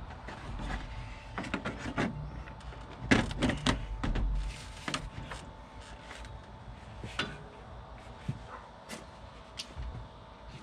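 Metal tools clinking and knocking in irregular bursts as a three-jaw puller is fitted onto a supercharger pulley, busiest about three to five seconds in.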